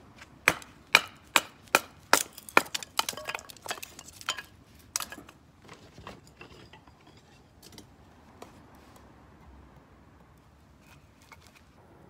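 A thin strip of wood being chopped and split into kindling with a blade. About six sharp knocks come at roughly two and a half a second, then quicker, lighter cracks and splintering, dying away after about five seconds.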